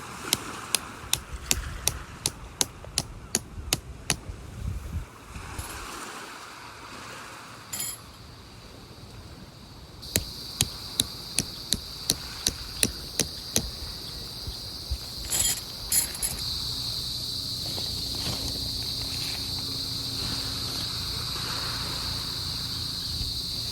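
Sharp, evenly spaced knocks, about three a second, in two runs with a pause between, over a low rushing background. About ten seconds in, a steady high-pitched buzz starts and holds.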